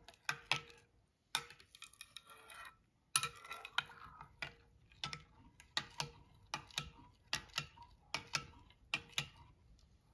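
Metal spoon stirring a thin coconut milk mixture in a glass bowl, clinking against the glass in irregular taps, about two a second.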